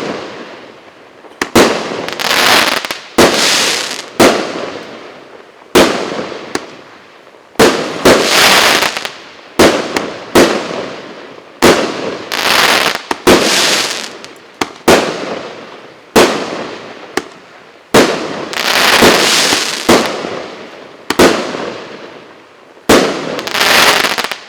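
A consumer firework battery (cake) firing shot after shot, about a dozen in all, one every one to two seconds. Each shot is a sharp bang followed by a crackling hiss that fades over a second or so.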